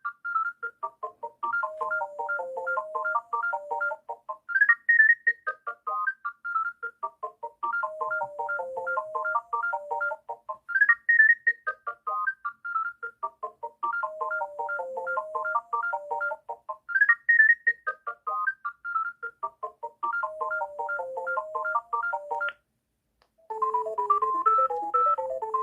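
Alcatel OT-153 mobile phone playing a beeping ringtone tune, the same short phrase of rapid notes repeating about every six seconds. Near the end it stops, and after a brief pause a different ringtone begins.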